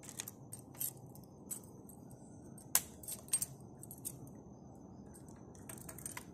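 Ignition key being turned in a Royal Enfield motorcycle's ignition switch, with the keys on the ring clinking: a scatter of sharp metallic clicks, the loudest a little before the middle and a quick cluster near the end.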